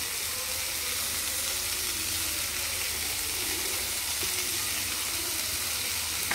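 Chopped vegetables (capsicum, carrot, sweet corn, onion, tomato) sizzling steadily in ghee and oil in a nonstick kadai.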